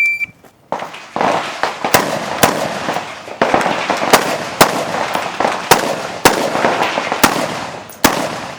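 A shot timer beeps once at the start, then a rifle fires a steady string of about a dozen shots, roughly one every half second.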